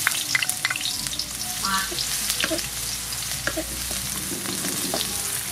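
Chopped garlic sizzling in hot soybean oil in a metal wok, stirred with a wooden spatula: a steady hiss with scattered small crackles.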